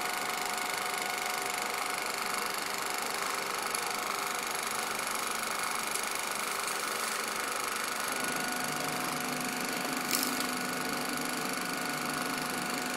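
1950s Marin film projector running steadily, its film transport mechanism making an even mechanical whirr. About eight seconds in, a steady hum joins it as the sound is brought up to check the optical soundtrack. There is a single click near ten seconds.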